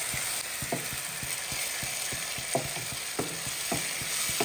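Tomato paste, onions and green chilli sizzling in oil in a nonstick frying pan while a wooden spatula stirs them, with a steady sizzle and about five short scrapes and knocks of the spatula against the pan.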